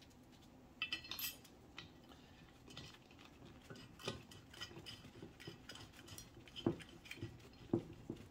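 Faint, scattered metallic clinks and clicks of a steel bolt and its lock and flat washers being handled and threaded by hand into a steel bracket on top of an air spring, with a few sharper clicks now and then.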